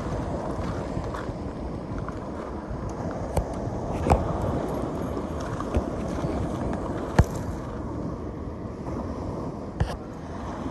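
Steady wind buffeting the microphone, with the sea behind it, broken by about five short sharp clicks and knocks, the loudest about seven seconds in.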